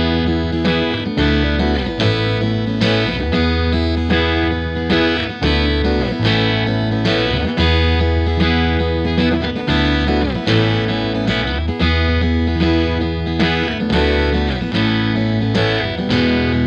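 Background rock music with distorted electric guitar over a steady beat and bass.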